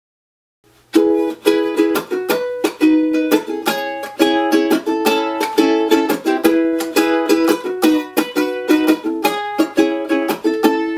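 Ukulele strummed in an even, steady rhythm, playing an instrumental chord intro. It starts about a second in, out of silence.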